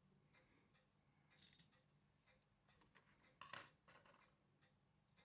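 Faint clicks and light metallic scrapes of small watchmaking tools on watch parts, the loudest about a second and a half in and again about three and a half seconds in.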